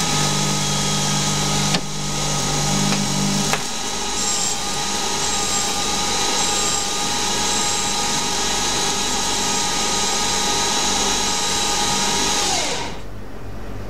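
Small benchtop CNC lathe cutting a Delrin part on a finishing pass at 0.1 mm per rev. The motor and spindle run with a steady whine. A low hum drops out a few seconds in, and the whine falls away near the end as the machine slows.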